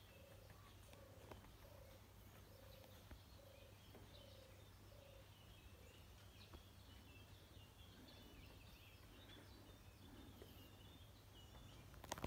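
Quiet outdoor ambience with faint birds calling: high chirps, and a lower note repeated about twice a second for the first few seconds. A single sharp click sounds near the end.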